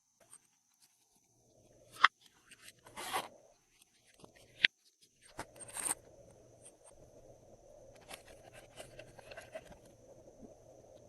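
Glossy slime being worked by hand: a few separate sharp sticky pops and a short rasp in the first half, then a low, continuous crackling with small clicks through the second half as it is pressed and stretched.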